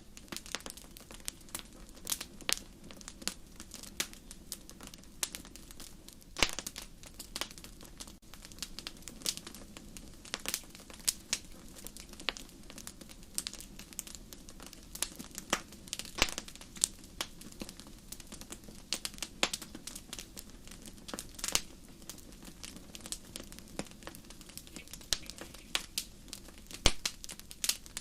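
Wood fire in a fireplace crackling: irregular sharp pops and snaps, several a second, over a steady low hiss of burning.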